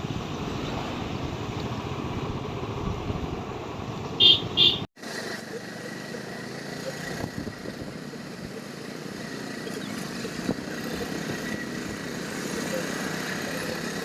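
Motorcycle running at riding speed, its engine mixed with wind noise on the microphone. Two short beeps come about four seconds in, and the sound cuts out for an instant just after.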